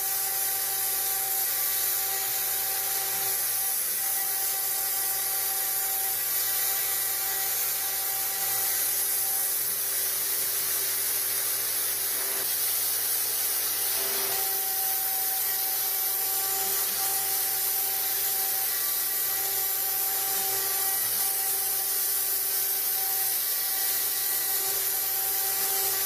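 CNC router's 1 HP spindle running steadily while its tool engraves steel. It makes a continuous high-pitched hissing scrape with a steady whine, and the whine wavers briefly about halfway through.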